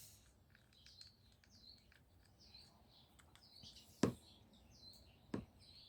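Small birds chirping over and over, faint and high. Two sharp clicks sound about four and five and a half seconds in, from the mirror's wiring plug and its clip being worked.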